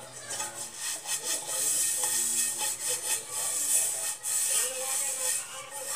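Hot oil sizzling steadily as fish fries in a pan.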